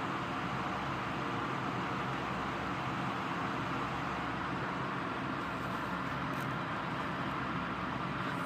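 Steady rain in a thunderstorm, an even, unbroken hiss.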